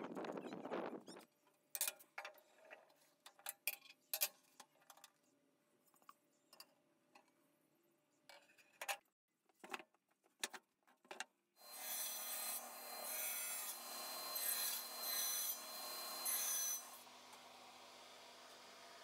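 Woodworking on pallet wood: scattered knocks and clicks of wooden pieces being handled, then about five seconds of loud, rough rasping as a power tool grinds or sands the wood in strokes. It stops suddenly, leaving a low hum.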